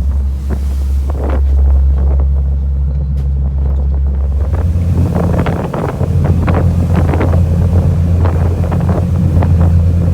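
A fishing boat's engine running under way, a steady low drone that changes note about halfway through, with wind buffeting the microphone.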